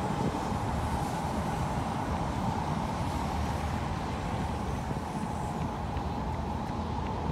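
Electric commuter train running across a long river bridge, a steady rumbling run that slowly fades as the train pulls away.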